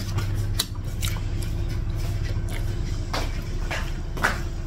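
Close-miked chewing of a mouthful of char kway teow (fried flat rice noodles), with a handful of short wet mouth clicks and smacks over a steady low hum.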